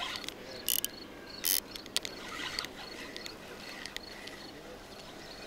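Spinning reel being cranked to play a hooked pike: a faint steady whir with a thin high ticking tone, and two short hissy bursts in the first two seconds.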